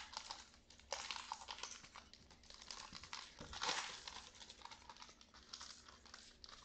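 Pokémon trading cards being flipped through and sorted by hand: soft, irregular card flicks and rustles, with a couple of louder slaps about a second in and a little past the middle.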